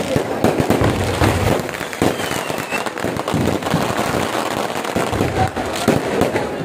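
Aerial fireworks bursting and crackling in a rapid, continuous barrage of bangs and pops, with a brief gliding whistle about two seconds in.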